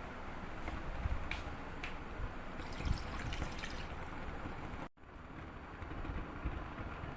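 Water trickling and dripping, with a few light clicks. The sound breaks off abruptly about five seconds in and something different follows.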